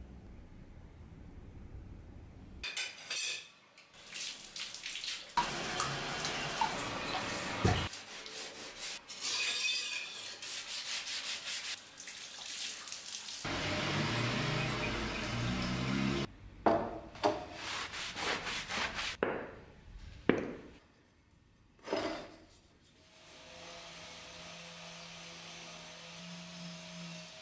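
Rust-removal work on a steel machete blade in short cuts: rubbing and scrubbing, sharp knocks of the metal, and water. Near the end an angle grinder starts a steady hum.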